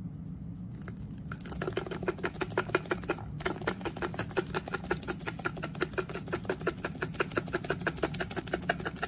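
A steak seasoning shaker shaken over a bowl of raw beef livers: a fast, even rattle of about nine shakes a second, pausing briefly about three seconds in and stopping just before the end, over a steady low hum.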